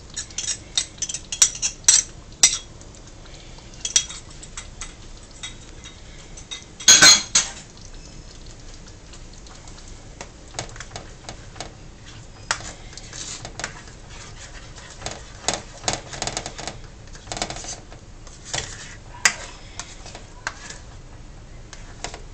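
A spatula scraping and knocking against a wok in irregular clacks while chilli sauce and beaten egg are stirred together. The loudest run of knocks comes about a third of the way through.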